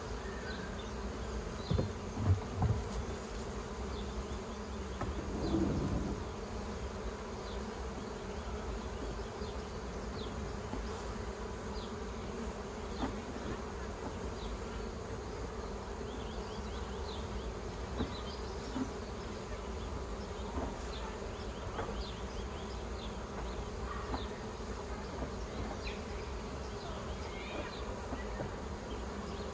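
Swarm of Buckfast honey bees buzzing steadily around an open hive, a dense, even hum. A few short knocks come in the first few seconds.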